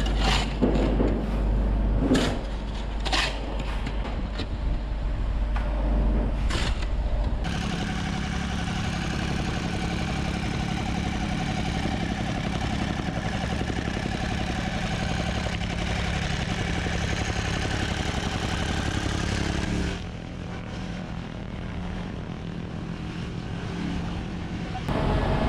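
Shovels scraping and dumping fill into a trench, with scattered knocks, for about seven seconds. Then a small engine runs steadily with a fast pulse: a jumping-jack rammer compacting the fill.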